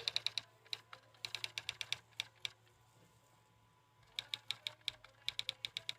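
Typewriter typing sound effect: quick runs of sharp key clicks, stopping for about a second and a half near the middle before starting again.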